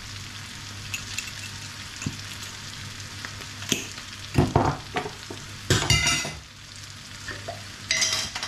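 Onions, sea samphire and chickpeas sizzling steadily in a frying pan while ground spices are stirred in. A few sharp clinks and knocks come from the spoon, pan and spice jars, the loudest about six seconds in.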